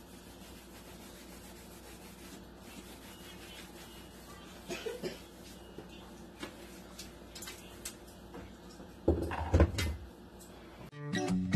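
Light clicks and knocks of things being handled inside a wooden under-sink cabinet, then a few loud thuds near the end as a metal shelf riser is set down in it. Guitar music starts just before the end.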